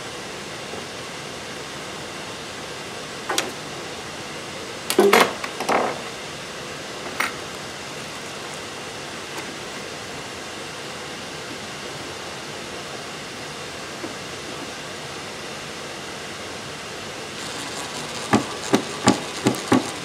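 A few sharp knocks of hardware and hand tools handled on the wooden frame, the loudest about five seconds in. Near the end a DeWalt cordless impact driver starts up, driving a small screw that fastens a D-ring into the frame with a quick run of sharp clacks.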